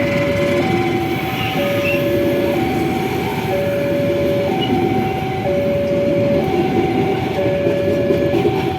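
Railway level-crossing alarm sounding a steady two-tone alternation, high and low, switching about every second, over the rumble of a train running past on the rails.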